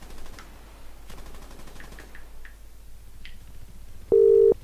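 Faint clicks, then a telephone's double-ring tone near the end: two loud, steady, low beeps of just under half a second each, close together.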